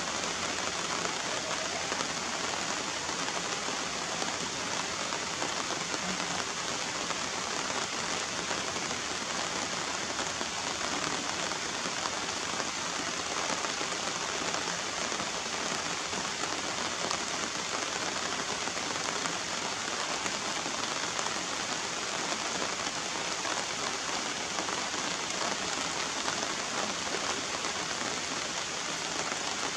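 Steady rain falling on standing water and wet surfaces, an even, unbroken hiss.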